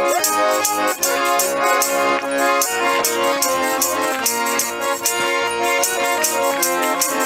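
Village folk dance music: an accordion holding steady chords, with a jingling rattle or tambourine shaken on a steady beat.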